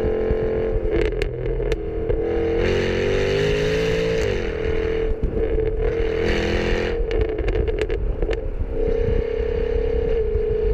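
Jaguar F-Type R's supercharged V8 and exhaust, heard from inside the car, holding a steady engine note. A few seconds in, a louder surge comes as the pitch dips and climbs back. Clusters of sharp exhaust pops sound about a second in and again around seven to eight seconds.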